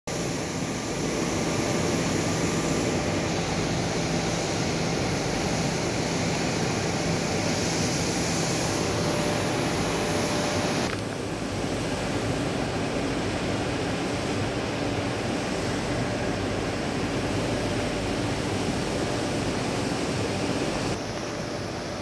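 Steady outdoor background noise, a dense rush with a faint low hum in it, dropping abruptly in level about halfway through and again near the end.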